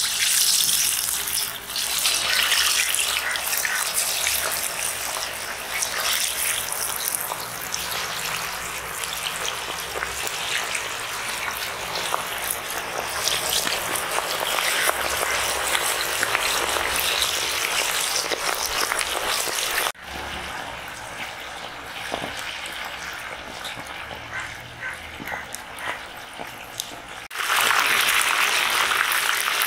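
Masala-coated leather jacket fish pieces deep-frying in a large pan of hot oil: a steady, loud sizzle and bubbling. It drops quieter about twenty seconds in, then comes back louder near the end.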